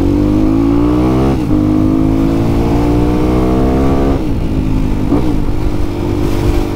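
Yamaha WR155R's single-cylinder engine pulling on the move: the revs climb, drop with a gear change about a second and a half in, and climb again. Past the middle they ease off and settle to a steady note. The fuelling has not been retuned since a switch back to a stock camshaft, and the rider says it is off, running lean.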